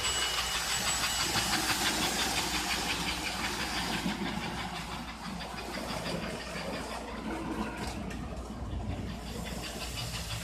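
American Flyer 312 S-gauge toy steam locomotive running on its track: motor hum and wheel noise with a fast, even, hissing chuff.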